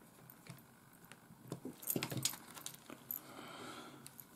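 Faint clicks and taps of a small screwdriver and fingers handling a compact camcorder's case, loudest between one and a half and two and a half seconds in. A soft brushing sound follows about three seconds in, as the flip-out screen is swung open.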